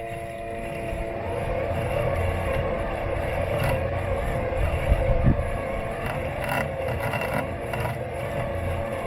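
Robot lawn mower running close up, its motors giving a steady whine in several fixed pitches over a low rumble, with a few sharp knocks and scrapes, heard through a camera taped to the mower's body.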